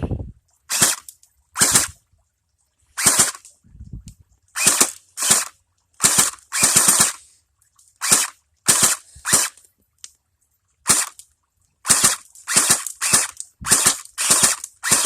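Double Eagle battery-powered electric airsoft Tommy gun firing at targets: over a dozen short, sharp shots, unevenly spaced with brief pauses, some in quick pairs.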